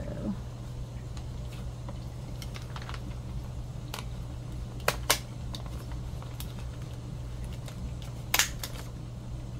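Small handheld stapler pressed through journal paper: a sharp double click about five seconds in and another near the end, between light ticks of paper being handled. A steady low hum runs underneath.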